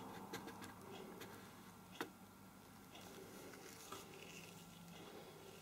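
Faint handling noises of a cup full of oil being moved by hand on a wooden table: small scattered clicks and knocks, with a sharp click about two seconds in and a smaller one near four seconds.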